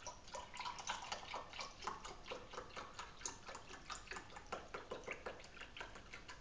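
Chocolate soy milk pouring from a carton into a glass tumbler: a fast, irregular run of small glugs and splashes that thins out near the end.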